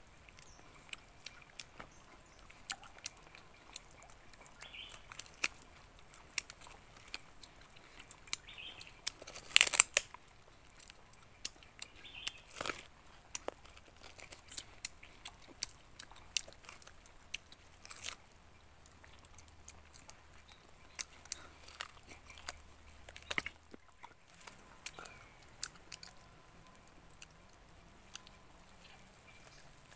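People chewing and biting into whole roast chicken close to the microphone: many short crunches and smacks of skin and meat, with one loud crunch about a third of the way through.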